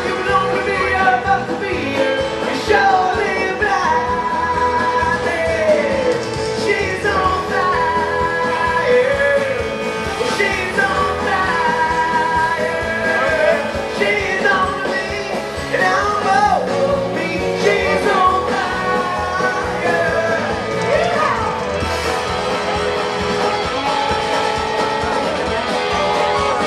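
Live rock band playing a song with a lead singer, amplified through the concert PA and heard from the audience seats.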